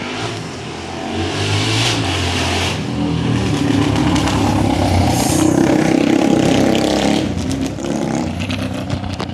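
Honda CB 300 single-cylinder motorcycle engine revving, its pitch climbing over the first two seconds, held high, then falling back about seven seconds in.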